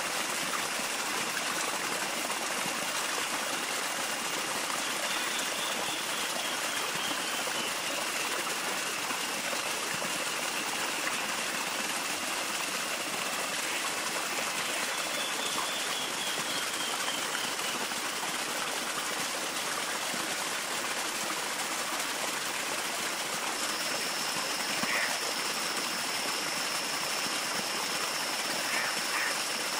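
Steady rush of running water, like a stream, with faint thin high-pitched calls above it, one held steady near the end.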